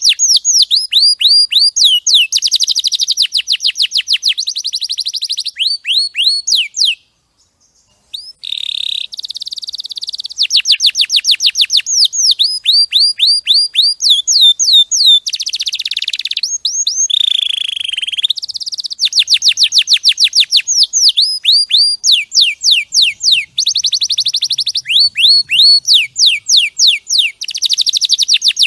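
Domestic canary singing a long song of fast trills: rapid runs of repeated, quickly falling notes, broken by one short pause about seven seconds in.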